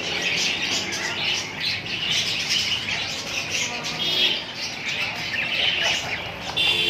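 Several small parrots chattering, with a steady stream of overlapping chirps and squawks.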